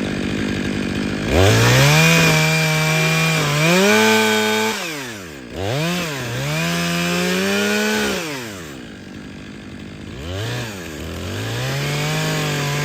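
Stihl MS 500i fuel-injected two-stroke chainsaw idling, then revved up about a second in and cutting in bursts. Its pitch dips and rises several times and falls back toward idle about two-thirds through before revving again. The saw is trimming the face notch of a tree, removing undercut and overcut to leave a smooth hinge.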